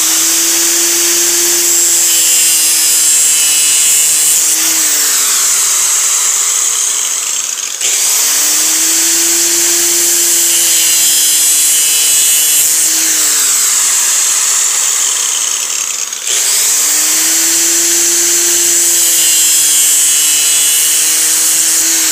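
Handheld angle grinder running at full speed while grinding a small PVC elbow fitting, with a steady high whine that sags in pitch a few seconds into each run. The sound breaks off abruptly twice and picks up again at full pitch, giving three near-identical runs.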